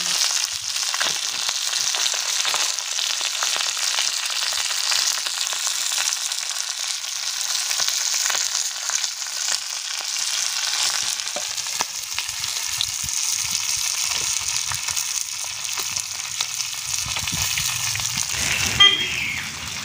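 Vanjaram fish, green chillies and curry leaves frying in oil on an iron dosa griddle: a steady sizzle with fine crackling. A brief sharp sound near the end.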